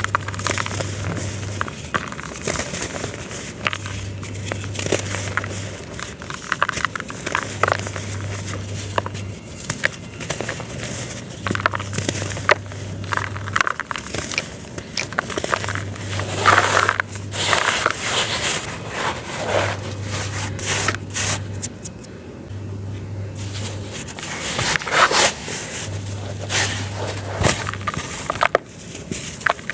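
Dry red dirt ('Red Devil') being crushed and crumbled by hand: dense gritty crackling and crunching, with louder crunches about 16 and 25 seconds in.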